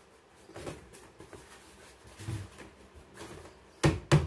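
Scattered light knocks as wooden flat-pack cabinet panels are handled and fitted together, then two sharp, loud knocks close together near the end.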